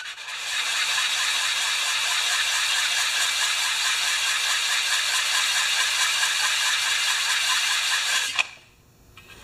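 The gas tank of a 1968 Homelite XP-1020 chainsaw being rubbed in circles, face-down, on sandpaper laid on a flat board: a steady scraping that stops abruptly near the end. The tank's gasket face is being lapped flat as part of a repair to a leaky gas tank.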